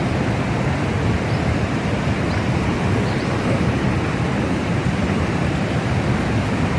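River rapids rushing steadily: a constant, even roar of fast water over rocks, heaviest in the low range.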